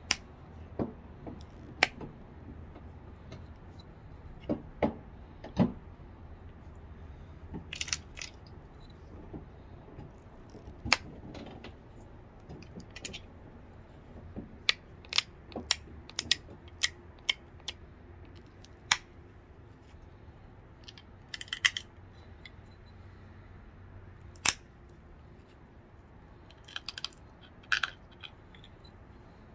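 Stone biface being pressure-flaked with an antler pressure flaker: sharp, irregularly spaced clicks as flakes snap off the edge, a few coming as short scratchy clusters.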